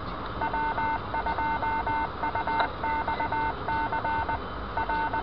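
A quick run of touch-tone (DTMF) beeps: many short two-note pulses in groups, over the steady road noise inside a moving car, with a single click about halfway through.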